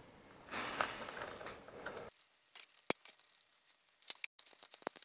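Faint rustling and scraping of hands handling metal parts, followed by a few sharp light clicks of small steel parts being set on and fitted to a machine-tool cross slide assembly.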